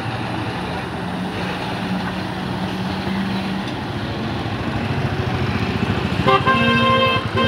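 BharatBenz heavy truck's diesel engine running steadily as the lorry turns through a hairpin bend, and near the end a vehicle horn blares for about a second.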